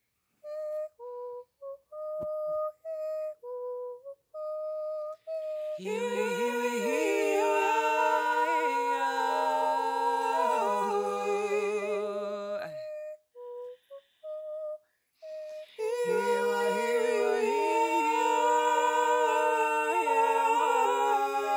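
Layered a cappella voices humming and singing held chords with vibrato, coming in about six seconds in, breaking off around thirteen seconds and coming back around sixteen seconds. Before each entry, a short melody of single clear notes with gaps between them.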